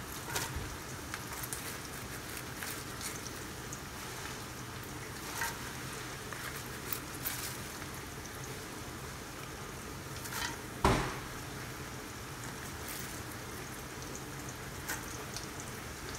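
Dark soy-and-oyster-sauce mixture simmering in a large metal pot, a steady bubbling hiss, as shredded cabbage is dropped in and moved around with a wooden spatula. A few light clicks and one sharp knock about eleven seconds in.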